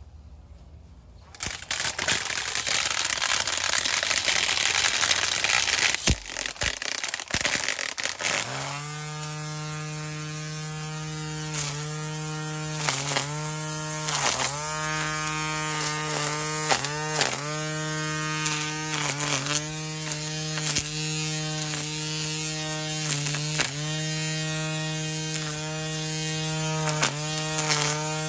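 Hart 40-volt cordless string trimmer running. For the first several seconds there is a loud rushing noise. Then the electric motor settles into a steady whine whose pitch dips briefly again and again as the spinning line cuts into weeds.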